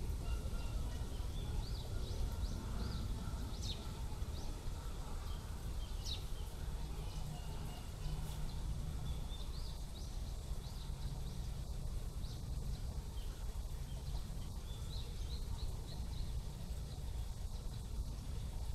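Steady low outdoor background rumble, with faint, short high-pitched chirps of small birds scattered through it, several in the first six seconds and a few more later on.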